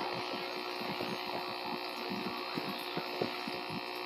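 Steady hum of an aquarium pump, with a quick, irregular run of soft pops from streams of air bubbles in the tank.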